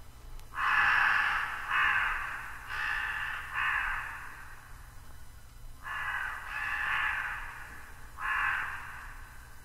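Crows cawing: a run of four harsh caws, a pause of about a second and a half, then three more.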